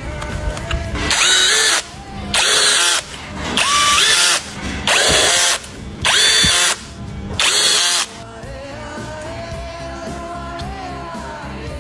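A handheld power tool run in six short bursts of under a second each, its pitch rising as each burst starts, over background music. After about eight seconds only the music goes on.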